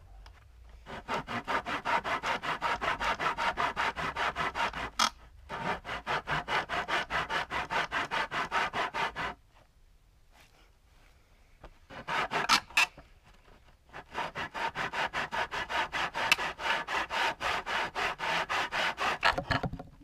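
Rapid back-and-forth strokes rubbing on pallet wood, about four or five a second, in runs of several seconds broken by short pauses.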